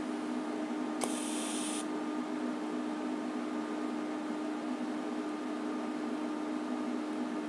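DC TIG welder striking an arc: a click and a short burst of high-frequency start hiss about a second in, then the arc burning with a steady hiss over a constant hum.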